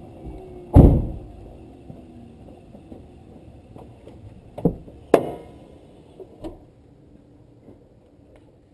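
Supercharged 5.4-litre V8 of a 2011 Shelby GT500 fading and falling in pitch as it winds down. A loud thump comes about a second in, followed around the middle by a few sharp clunks as the hood is released and lifted.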